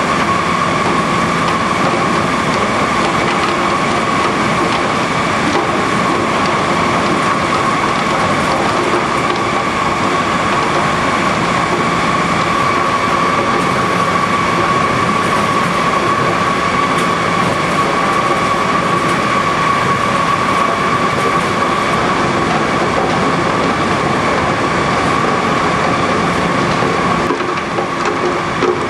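Steady din of running food-processing machinery: an even rushing noise with a constant whine through it, dipping briefly near the end.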